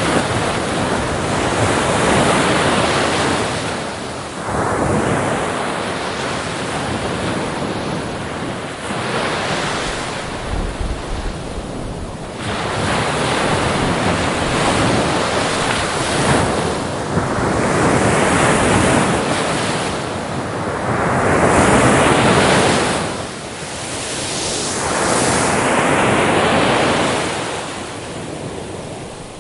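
Sea waves breaking on a shore, a rushing hiss that swells and recedes every few seconds, with wind noise on the microphone.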